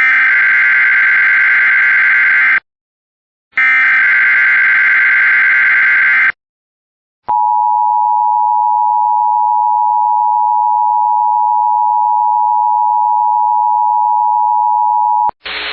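Emergency Alert System activation announcing a tornado watch. Two loud SAME header data bursts of warbling digital tones, each about two and a half seconds long with a one-second gap, are followed about a second later by the steady two-tone EAS attention signal, held for about eight seconds.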